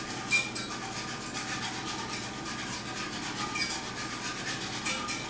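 Wire whisk stirring a milk-and-butter sauce in a metal skillet, clicking and scraping against the pan in a quick, even rhythm over a steady low hum.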